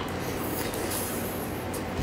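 Close-up eating sounds: a few faint crackles and a brief hiss of sucking as a cooked crustacean shell is bitten and picked at, over a steady background hiss.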